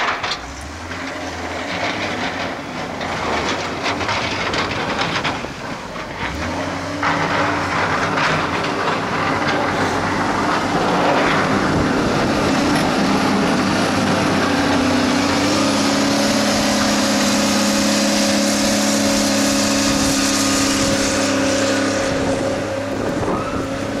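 Diesel engine of a New Holland wheel loader working under load as it pushes snow with a plow blade. The engine note settles into a steady hum about seven seconds in and grows louder as the loader comes close, holding loud through the second half.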